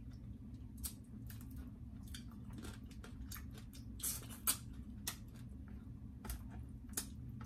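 Close-up eating sounds: wet chewing and scattered cracks and crackles of spicy-sauced shellfish shells being broken and peeled, a few sharper cracks about four to five seconds in, over a low steady hum.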